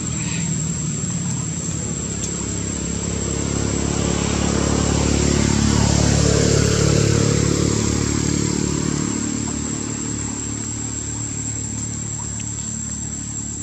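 A motor vehicle passing by: a low engine drone that grows louder to a peak about six seconds in, then fades away.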